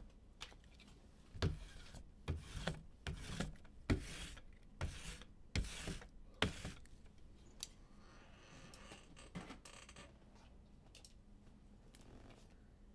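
A run of irregular clicks and light knocks, strongest in the first half, then a brief faint rustle a little past the middle, with quiet room tone after.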